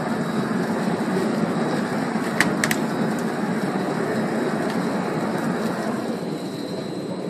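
Stretch-wrapping machine running steadily as it applies machine stretch film, with two sharp clicks about two and a half seconds in.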